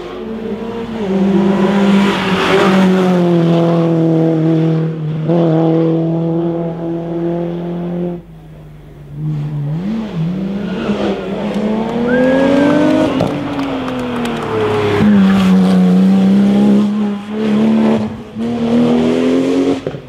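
Race car engines at high revs on a hillclimb. The pitch holds steady and high for several seconds, dips briefly about eight seconds in, then rises, falls and rises again as the cars accelerate and change gear.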